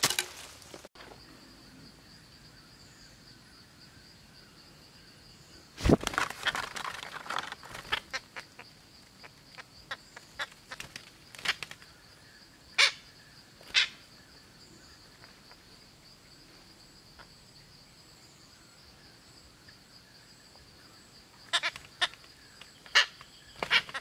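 Parrots squawking in short, sharp calls, two about halfway through and a cluster near the end, over a steady high insect drone. A loud burst of noise about six seconds in.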